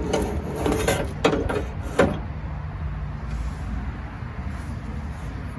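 Metal clicks and rattles of a truck door latch assembly and its linkage rods being handled, with a sharp click about two seconds in. A steady low hum runs underneath.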